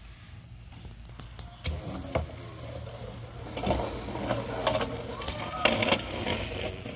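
A plastic Lego toy airplane is handled on a wooden picnic table: two sharp knocks about two seconds in, then a busier stretch of scraping and rattling as it is slid along the boards.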